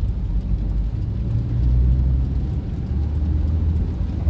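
Steady low rumble of engine and road noise heard inside a moving car's cabin.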